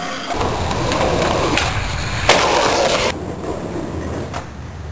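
Skateboard wheels rolling over pavement with a steady rumble, with two sharp clacks of the board partway through. The rumble stops abruptly about three seconds in, leaving a quieter stretch with one faint click near the end.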